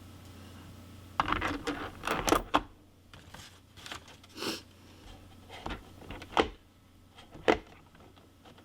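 Metal crimping dies clicking and knocking against each other and their case as they are picked through and set down: a quick cluster of clinks about a second in, then scattered single knocks, two of the loudest near the end. A faint steady low hum runs underneath.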